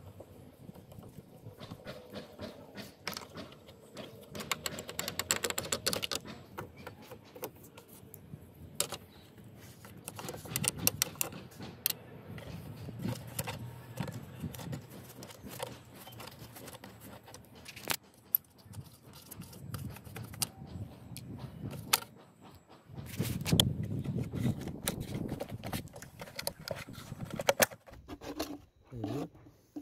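Car bonnet trim being removed by hand: a driver undoing the screws of the plastic panel, then the panel being worked loose. There are many small clicks, knocks and scrapes of metal and plastic, with a quick run of clicks a few seconds in and a louder scraping, rustling stretch about three-quarters of the way through.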